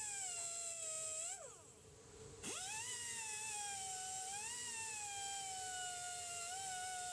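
Air-powered die grinder with a small wire wheel whining as it scours the inside of a metal pump stator housing; the pitch sags and wavers as the wheel bears on the metal. About a second and a half in, the trigger is released and the whine falls away; a second later the tool spins back up with a sharp rising whine.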